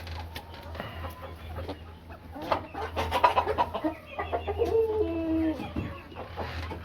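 Barn flock of chickens clucking, busiest about halfway through, with one drawn-out call that falls in pitch.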